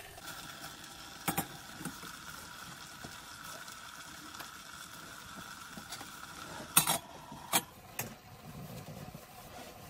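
A Stanley stainless-steel pot of carrots boiling on a gas burner, with a steady hiss. There is one metal clink about a second in, then the stainless-steel lid is set on the pot with a few sharp metal clanks about seven seconds in, and the steady tone in the hiss stops there.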